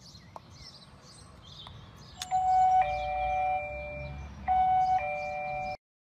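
GazingSure wireless video doorbell pressed, a click followed by its electronic ding-dong chime played twice, each time a higher note stepping down to a lower one. It cuts off suddenly near the end.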